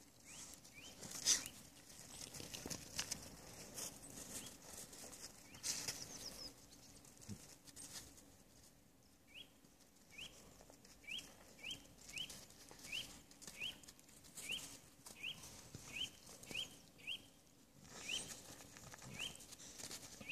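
Faint scuffling and scraping of dogs' paws and bodies on icy, gritty snow as a Labrador mix and Bedlington terrier puppies wrestle. From about nine seconds in, a series of short, high rising chirps repeats about twice a second.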